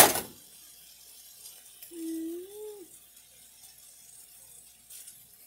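A sharp metal clatter at the very start as kitchen tongs are set down on the stovetop, then a short hummed note that rises and falls about two seconds in, over a faint steady hiss.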